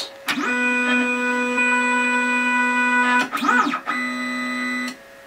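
Weedo ME40 3D printer's stepper motors whining as it runs its homing sequence. A steady pitched tone sweeps up as the motion starts and holds while the print head travels to the top. About three and a half seconds in comes a short rising-and-falling sweep, then another steady tone that stops shortly before the end.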